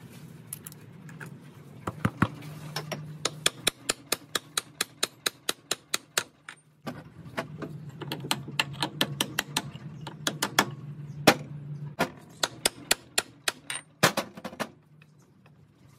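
A hammer tapping a brass drift against a lathe spindle bearing, driving the bearing back into the cast-iron headstock: quick light metallic taps, several a second, in two long runs with a few harder blows near the end.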